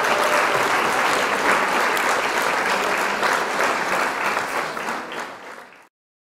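A crowd applauding, a dense steady clapping that fades away over the last second and stops just before the end.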